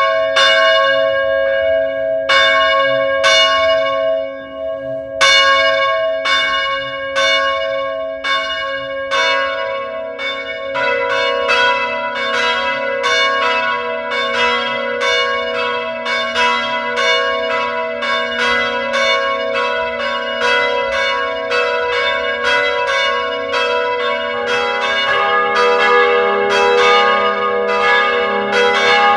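Church bells ringing. At first single strokes come about a second apart, then from about a third of the way in they quicken to roughly two strokes a second, each tone ringing on into the next. Lower-pitched bells join in near the end.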